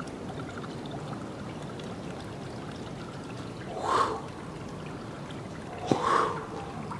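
Water trickling steadily, with two brief louder rushing noises about four and six seconds in, the second preceded by a sharp click.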